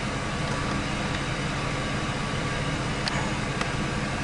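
A 2004 Ford F-150's 4.6-litre V8 running steadily, heard inside the cab as an even low hum. Two faint clicks come about half a second apart near the end.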